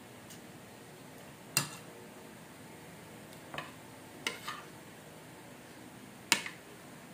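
A metal spoon clinking against a dish during a meal: five sharp clinks at irregular intervals, two of them close together midway and the loudest near the end.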